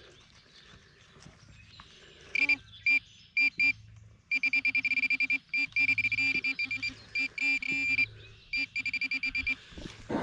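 Garrett Pro-Pointer AT pinpointer beeping as it closes in on a metal target in a dug plug of soil. It gives a few separate beeps, then rapid pulsing beeps of about seven a second that run together at times into a steady tone.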